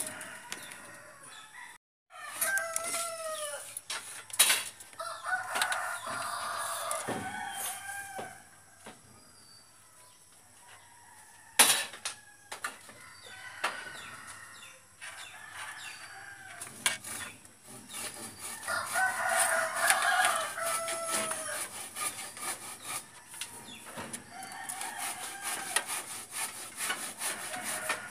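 Roosters crowing several times, with long drawn-out calls, and a few sharp knocks, the loudest about twelve seconds in.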